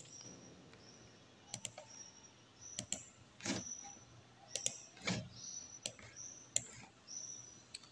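Scattered faint clicks of a computer mouse and keyboard, about a dozen irregular taps, with short high chirps in the background.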